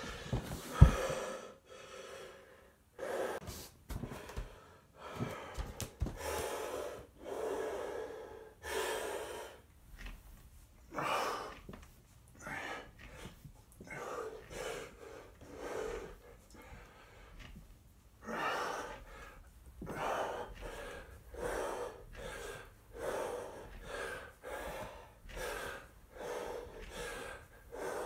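A man breathing hard after bodyweight exercise: loud, ragged breaths about one a second, each a rush of air. A single sharp thump about a second in.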